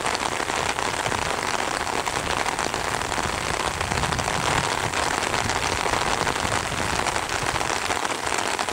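Steady rain falling, a dense even hiss of many small drops that holds at the same level throughout.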